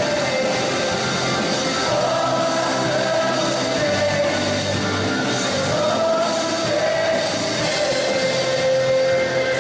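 Live rock band playing with a sung melody line held in long notes over guitars and drums.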